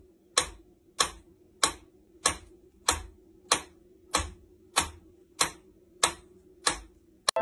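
Mechanical pendulum metronome ticking at an even beat, about three sharp ticks every two seconds.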